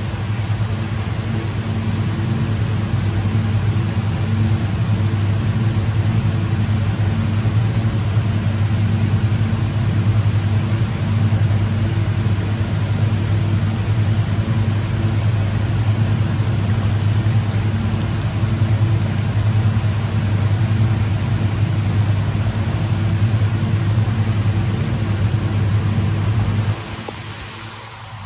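SEPTA Silverliner IV electric multiple unit standing at the platform, its onboard equipment giving a steady low hum made of a few held tones over a wash of noise. Near the end the hum cuts out suddenly.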